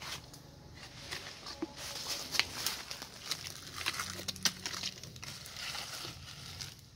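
Knife cutting at the stem of a freshly picked jackfruit and stripping its leaves: scattered sharp cracks and snaps over rustling of leaves and dry leaf litter.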